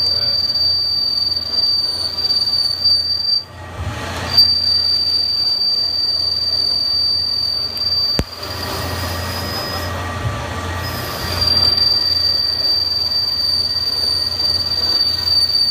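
Haas SL10 CNC lathe taking a dynamic roughing cut with a button tool, the cut giving off a loud, steady high-pitched squeal that stops briefly twice. The squeal comes from a feed rate set too slow; 0.02 IPR would have avoided it.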